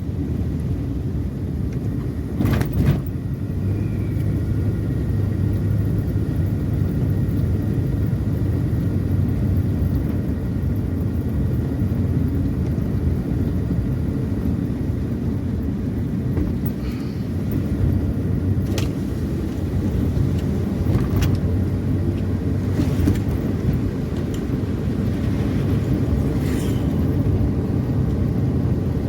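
Car on the move: a steady low engine and road rumble, with a few faint knocks along the way.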